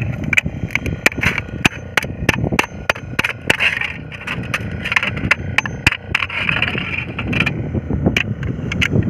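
Small hammer tapping repeatedly on a strip of tinplate cut from a tin can, laid on a rock: a string of sharp, irregular knocks about three times a second.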